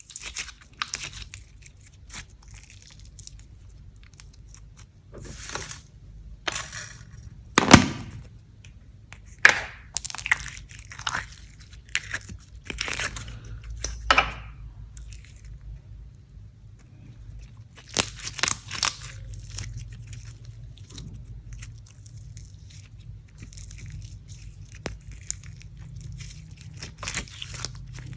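Slime being worked by hand, giving irregular crackles, crunches and sharp pops, the loudest about a third of the way in and again about halfway.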